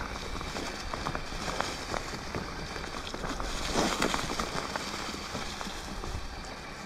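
Dry undergrowth rustling and crackling with many small snaps, with a louder rustle about four seconds in.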